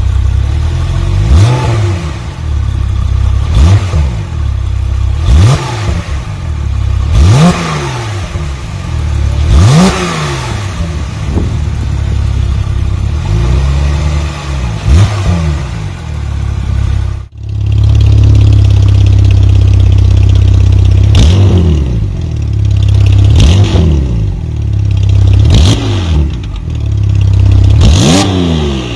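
Porsche 991.2 Carrera's 3.0-litre twin-turbo flat-six, stationary, revved in short blips every couple of seconds through the stock exhaust without the Porsche sports exhaust. About two-thirds of the way in it cuts to the same car on an Armytrix cat-back valvetronic exhaust with the valves open, idling louder between more revs.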